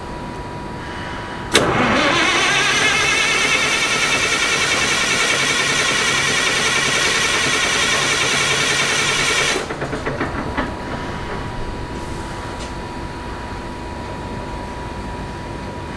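Starter motor cranking a Perkins 2806 electronic diesel generator engine for about eight seconds without the engine firing. Its whine rises as it spins up and then holds steady, and it stops abruptly with a few short rattles. The engine only cranks and won't run: a hard-starting fault. A steady machinery hum with a thin constant tone runs underneath.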